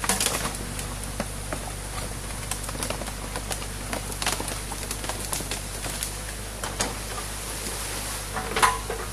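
Excavator engine running steadily while its bucket rips into a beaver dam of packed sticks and mud, with repeated sharp cracks and snaps of branches breaking. Water rushes through the breach underneath.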